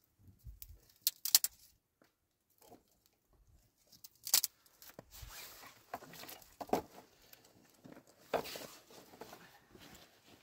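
Dry brushwood twigs rustling and crackling as handfuls are pushed onto a small wood fire, with sharp cracks about a second in, about four seconds in and about eight seconds in.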